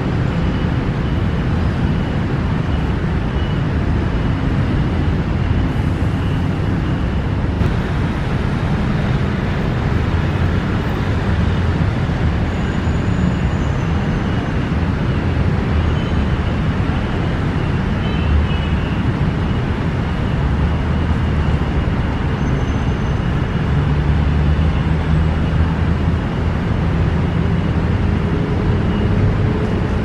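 Steady rumble of city road traffic, with a few faint, brief high tones above it.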